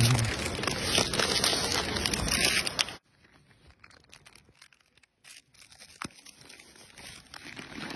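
Plastic snack-cake wrapper crinkling and tearing as a macaque grabs and pulls at it, for about three seconds, then cuts off suddenly to faint quiet with a few light ticks.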